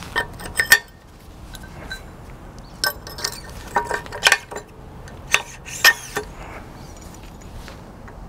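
Steel pin and bushings of a pin-and-bushing kit clinking against the steel top bracket of a Cat hydraulic hammer as they are fitted into its lower pin bore. About a dozen sharp, separate metal clinks spread across several seconds.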